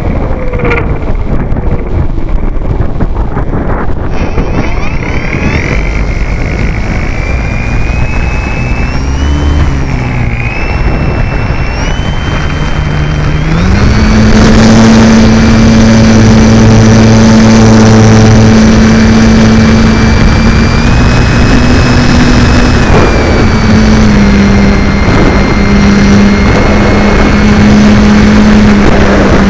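Multiplex FunCub's electric motor and propeller close to the microphone. It is throttled up in steps, its whine climbing in pitch over the first half, then runs loud and steady at high power for the takeoff roll and climb, with wind rushing over the microphone.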